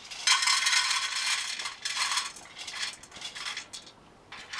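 Dried white maize kernels poured into a dry metal frying pan for toasting into cancha, clattering densely for over a second. They then rattle in shorter bursts as they are moved about the pan with a wooden spoon.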